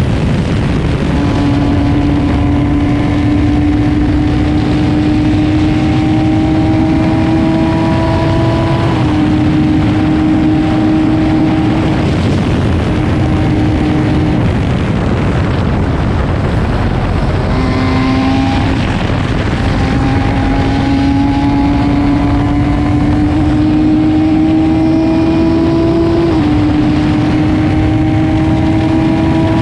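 Car engine at speed on a race circuit, heard from a helmet camera over heavy wind and road noise. The engine note climbs slowly in each gear and drops in steps at the gear changes. It fades twice in the middle, around the car lifting off for corners, then picks up again.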